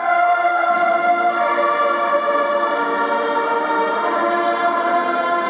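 Massed military band playing a slow passage of long held chords, a fuller chord coming in at the start and the notes changing every second or so.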